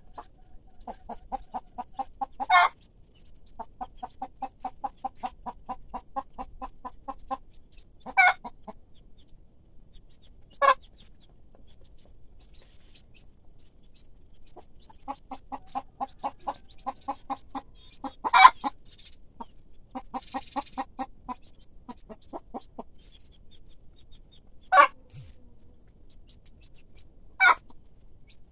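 Mother hen clucking to her chicks in runs of rapid, evenly spaced clucks, about five a second, with pauses between the runs. A loud, sharp single call cuts in every few seconds.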